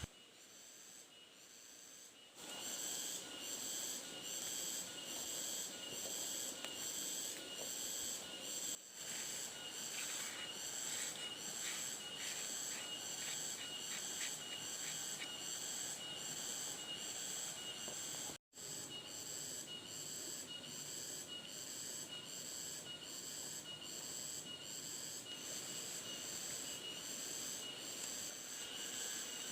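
Forest insects calling in a steady, high-pitched pulsing chorus, about one and a half pulses a second. It comes in loudly about two seconds in and cuts out for an instant about halfway.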